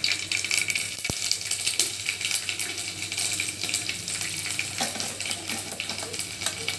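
Chopped garlic sizzling in hot mustard oil with a tempering of fenugreek, cumin and mustard seeds, a steady dense crackle.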